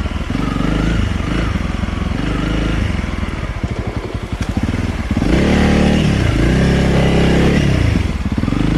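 Honda CRF300L trail bike's single-cylinder four-stroke engine on its stock exhaust, ridden with the throttle opening and closing so the revs climb and drop several times, then a stronger rise about five seconds in.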